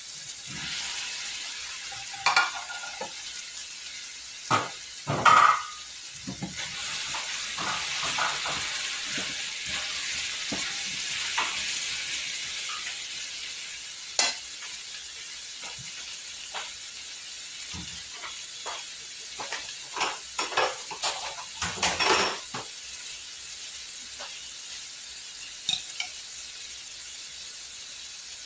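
Cut vegetables sizzling and frying in a hot wok as they are tipped in and stirred, with a steady hiss that is strongest in the first half. A cooking utensil knocks, clatters and scrapes against the pan at intervals, loudest in clusters early on and again about two-thirds of the way through.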